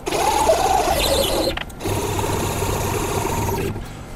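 Stepper-driven axes of a CNC milling machine being jogged into position: a pitched motor whine that rises and falls for about a second and a half, pauses briefly, then runs at a steady lower pitch for about two seconds and stops. The machine is being moved to the spot chosen as the workpiece zero point.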